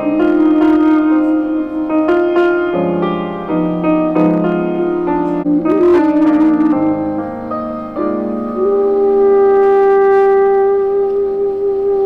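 Live ensemble music led by a plucked bağlama, a long-necked lute: a run of plucked notes, then from about eight and a half seconds in a long held note.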